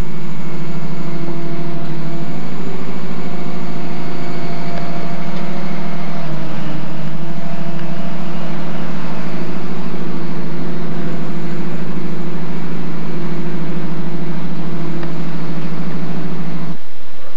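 Engine of a Genie S-65 self-propelled boom lift running at a steady idle, a constant low drone that cuts off abruptly near the end.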